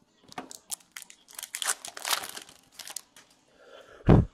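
Foil wrapper of a hockey card pack crinkling and tearing as it is opened by hand, in quick rustling bursts, followed by one loud, low thump near the end.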